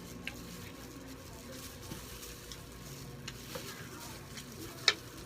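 Eating sounds: faint crackling and small clicks of food and utensils over a steady low hum, with one sharp click about five seconds in.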